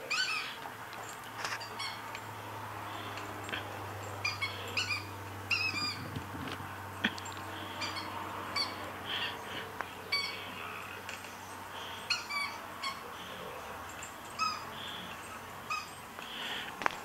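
A dog's squeaky toy squeaking in many short, high chirps at an irregular pace as the dog chews on it.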